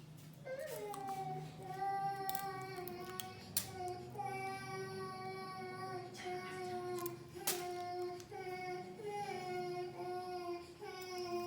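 A child crying in long, drawn-out wails, one after another, with a few sharp clicks between them.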